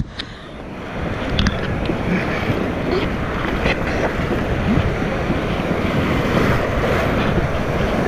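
Whitewater rapids rushing and splashing around a kayak, with the paddle blades striking the water and spray hitting the boat. The sound is briefly muffled at the very start, then the rushing water grows louder, with wind buffeting the microphone throughout.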